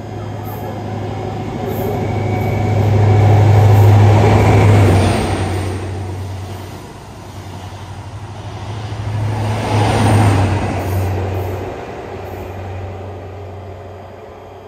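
High Speed Train with Class 43 diesel power cars at each end passing through the platform. The leading power car's engine drone and wheel noise build to a loud peak about four seconds in, ease as the coaches pass, swell again near ten seconds as the rear power car goes by, then fade away.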